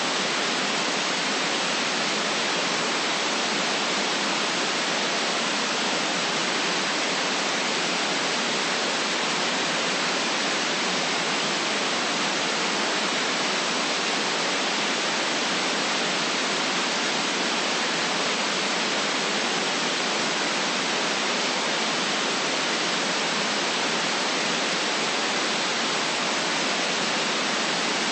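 Static noise: a steady, even hiss with almost no bass, unchanging in level or character.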